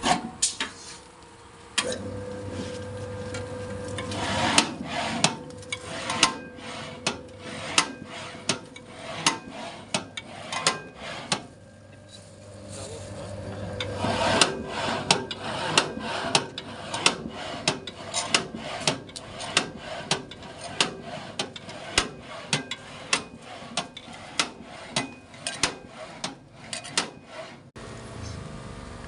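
Tempeh chip slicing machine running. A motor hum starts about two seconds in, then comes a steady rhythm of sharp cutting knocks at about two a second, with a brief lull midway, stopping shortly before the end.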